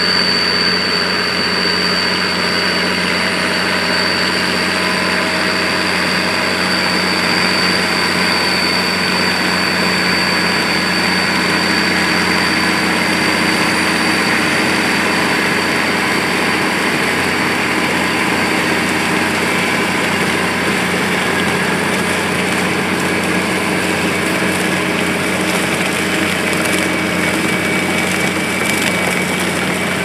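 Massey Ferguson 8460 tractor's six-cylinder diesel engine running steadily under load while pulling a manure spreader as it spreads muck, with a thin high whine over the engine.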